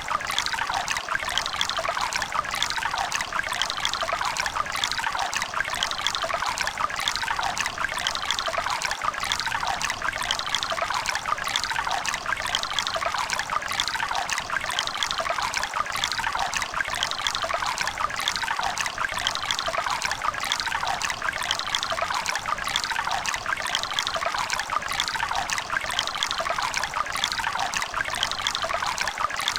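A shallow river running steadily, water splashing and gurgling over stones, without letup.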